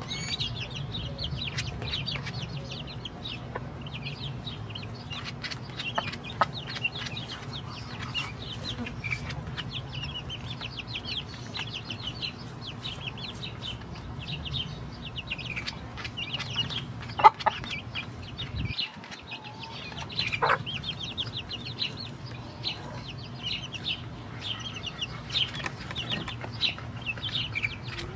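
Chickens clucking as they feed, a dense run of short high calls with a couple of louder calls about two-thirds of the way through. A steady low hum runs underneath.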